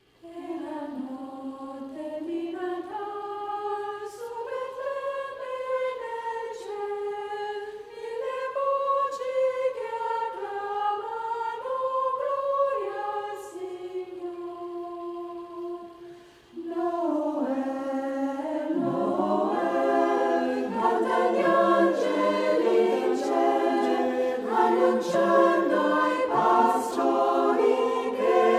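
Choir singing a slow sacred piece: a single melodic line at first, then about seventeen seconds in more voices join and the singing grows fuller and louder.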